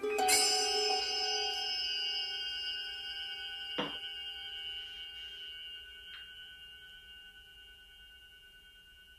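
A single struck bell tone in background music, ringing with several steady pitches and slowly fading away over about nine seconds. A light knock about four seconds in.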